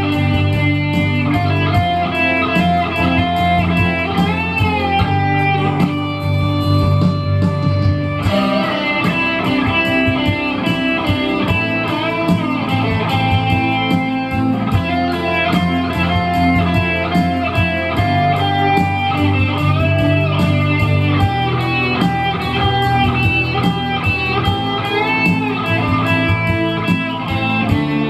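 Instrumental music led by a guitar playing a melody with bent notes over a bass line and a steady beat; the bass drops out for about two seconds near the start, then comes back.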